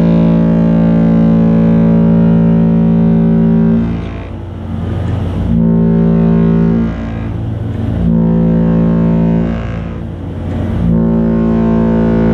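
Cruise ship horns sounding in a sail-away horn exchange: one long blast, then three shorter blasts of a bit over a second each. Each blast is a deep, steady chord of several tones over a constant low rumble.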